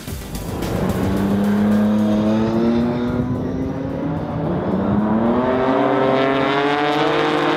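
Racing car engine accelerating at high revs, its pitch rising, dropping about three seconds in, then climbing again and holding.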